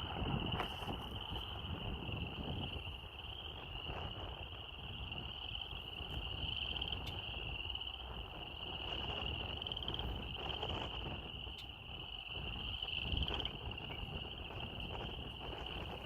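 Crickets chirring steadily in one continuous high, even trill, over a constant low rumble.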